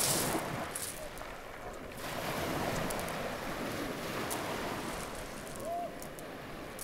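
Small sea waves breaking and washing in at the shoreline, a steady surf noise that swells as each wave breaks, strongest right at the start and again about two seconds in.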